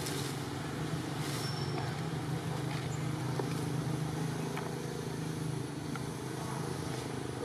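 Steady low hum of an engine running, with a few faint clicks over it.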